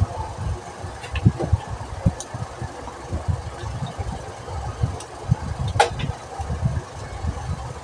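Hands swishing and handling leafy greens in a plastic basin of water, with irregular low thumps and a sharp click nearly six seconds in.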